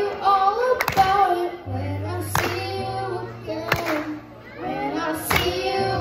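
Background pop music: a singing voice over sustained bass notes, with a sharp clap-like hit about every second and a half.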